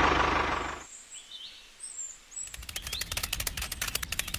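An engine sound fades out within the first second as the toy tractor leaves the picture, followed by a few faint bird chirps. From about halfway, a fast, even run of light clicks begins.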